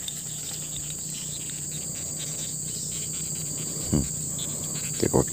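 Steady high-pitched chorus of insects trilling. About four seconds in there is one short croak, and near the end a run of quick croaks begins, from the small baung catfish held in the hand.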